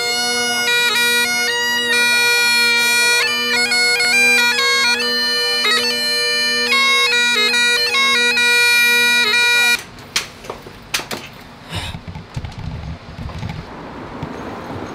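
Great Highland bagpipes playing a tune over their steady drones, cutting off abruptly about ten seconds in. Then quieter city street noise with passing traffic and a few sharp clicks.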